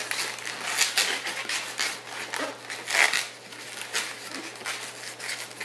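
Latex modelling balloons rubbing under the hands as they are twisted and shaped, a run of irregular short rubbing strokes.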